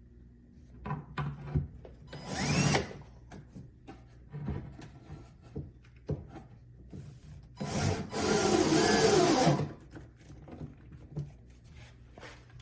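A cordless drill/driver runs twice to drive screws into the wood panels: a short burst about two seconds in and a longer run of about two seconds later on. In between there are knocks and clicks as the pieces and hardware are handled.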